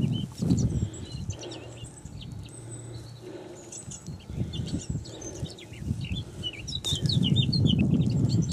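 Small birds chirping and singing over and over, busiest near the end, over a low rumbling noise that is loudest at the start and near the end.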